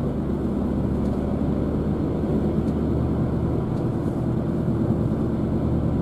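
Car driving along a road, heard from inside the cabin: a steady low rumble of engine and tyres on the asphalt.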